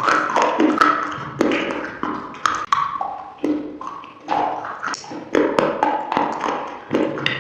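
Close-miked chewing of crunchy food: a steady string of loud crunches, about one or two a second.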